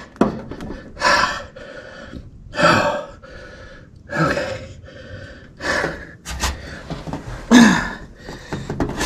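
A man breathing hard and gasping with effort, about five loud breaths roughly every second and a half, one ending in a short grunt near the end, while straining in an awkward position under a car's dashboard.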